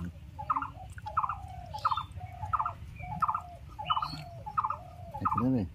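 Hacksaw cutting a short metal rod by hand, with steady back-and-forth strokes about 0.7 s apart, each giving a squealing rasp. The rod is being cut shorter so it stops pressing on the diesel engine's governor fuel control.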